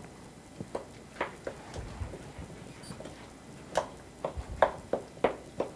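Wooden spoon stirring wet batter in a mixing bowl, giving irregular light knocks and scrapes against the bowl, a little louder in the second half.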